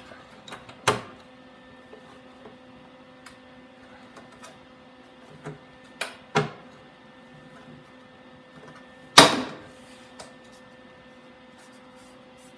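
Hand pop-rivet gun setting rivets in the sheet-metal wheel-well panel to pull it tight: a few separate sharp clicks and snaps, the loudest about nine seconds in, over a faint steady hum.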